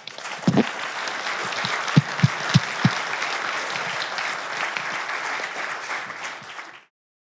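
Audience applauding at the end of a lecture: steady clapping with a few low thumps in the first three seconds, cut off abruptly near the end.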